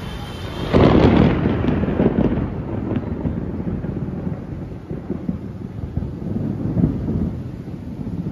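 Thunder: a sudden loud crack about a second in, then a long rolling low rumble.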